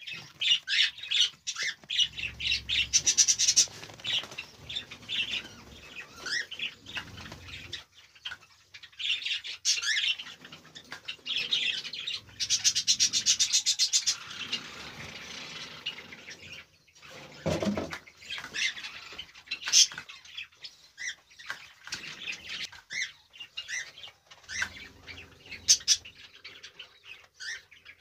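Cockatiels chirping and calling over and over in their breeding cages, with two denser, harsher bouts, one about two seconds in and one about twelve seconds in, and wings flapping against the cage.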